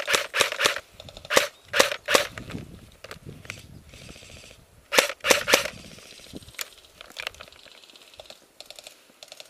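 Airsoft guns firing: short strings of sharp snapping shots in the first two seconds and again about five seconds in, then fainter, quicker strings of shots near the end.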